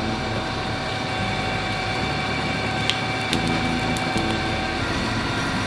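Two-roll rubber mill running with a steady mechanical hum, with a few light clicks about three to four seconds in.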